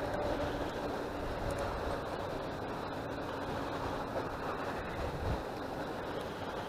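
Steady wind buffeting the microphone, with river water lapping against the shore rocks.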